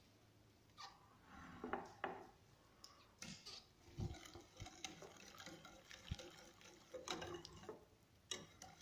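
Wire whisk beating a thin liquid cake batter in a glass bowl: faint, irregular clinks and taps of the metal wires against the glass, with a little sloshing of the liquid.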